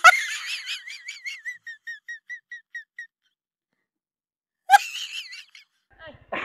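An edited-in high-pitched wavering sound effect that repeats in quick, fading echoes for about three seconds, then a second, shorter burst of it near the end.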